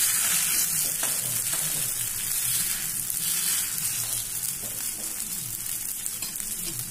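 Wheat-flour adai frying in oil on a hot dosa tawa, sizzling steadily on its freshly flipped side, the sizzle slowly easing off.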